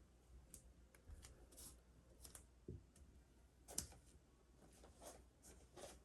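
Faint scattered clicks and rustles of handling and movement, the loudest a sharper tap about four seconds in.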